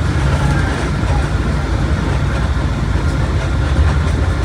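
Mercedes-Benz OF1721 BlueTec 5 bus under way: its diesel engine running steadily, a loud even low drone mixed with road and body noise.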